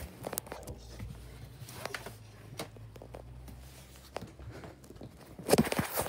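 Handling noise and footsteps as a phone is carried: scattered taps and knocks, then a run of heavier thumps near the end. A low steady hum underneath stops about four seconds in.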